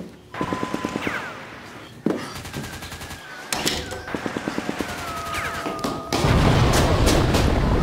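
Battle sound effects: several volleys of rapid machine-gun fire and the long, slowly falling whistle of a dropping bomb. About six seconds in, a loud explosion starts and carries on as a steady low rumble.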